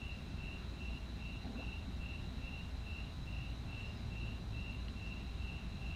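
Cricket chirping in an even rhythm, about two and a half short chirps a second, over a steady high insect drone and a low background hum.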